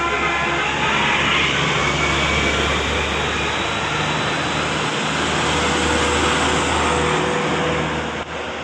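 A large bus running close by: a heavy, low engine note under a loud rushing noise that dies away near the end. The last notes of its musical telolet horn fade out at the very start.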